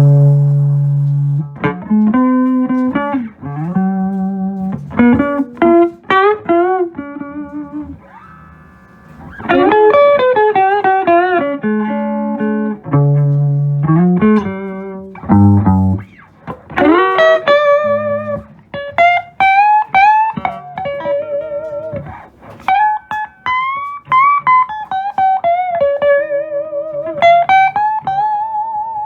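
Electric guitar on its neck pickup, played through a Fender Showman amplifier: single-note lead lines with string bends and vibrato, broken up by a few low notes.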